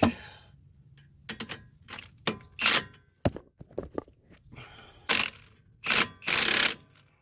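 Tool work on a seized lower strut bolt: a series of sharp metallic knocks and short, loud noisy bursts at irregular intervals, the longest burst near the end, as the bolt refuses to come free.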